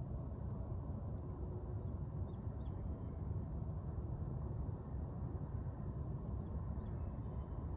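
Steady low outdoor background rumble, with a few faint, short, high chirps now and then.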